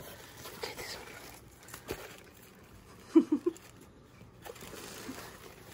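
Black tissue paper rustling softly in a cardboard box as a cat paws at it. About three seconds in come three quick, short vocal sounds, the loudest thing here.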